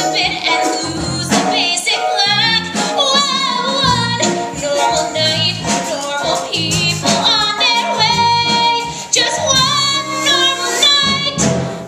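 A female voice singing a song over instrumental accompaniment, with vibrato on the held notes.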